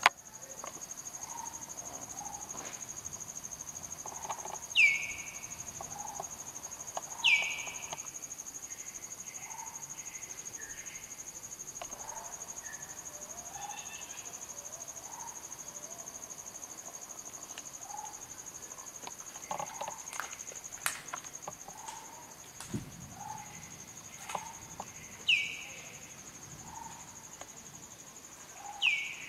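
Tropical forest insects keeping up a steady high-pitched whine. Over it, a loud bird call drops steeply in pitch four times, with softer, lower calls scattered between.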